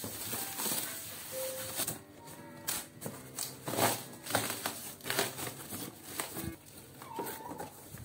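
Plastic stretch wrap and cardboard crinkling and rustling as a shipping box is cut open and its flaps pulled back, with scattered scrapes and knocks.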